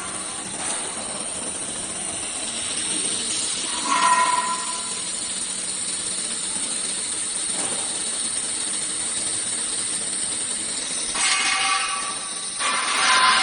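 Steady loud hiss of running CNC router shop machinery, with brief higher tones rising above it about four seconds in and again near the end.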